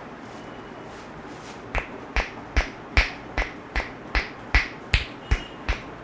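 Rhythmic sharp slaps of a barber's hands striking a client's head during an Indian head massage. They start about two seconds in and keep an even beat of roughly two and a half strokes a second.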